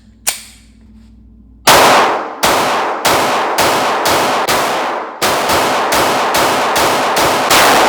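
Compensated Glock 23C pistol in .40 S&W fired in a rapid string of about fifteen shots, beginning a couple of seconds in, each shot followed by a ringing tail. A couple of light clicks come before the first shot.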